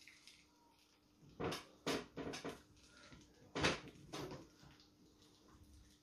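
Hand-cranked stainless steel sausage stuffer forcing pork through its filling tube into a casing, the crank turning stiffly under load. Two clusters of short noisy bursts, one about a second and a half in and another near the middle, over a faint steady hum.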